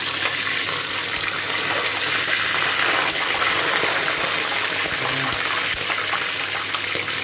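Half a chicken sizzling in hot oil in a stainless steel pot: a steady crackling hiss with scattered small pops as it shallow-fries in oil that only part-covers it.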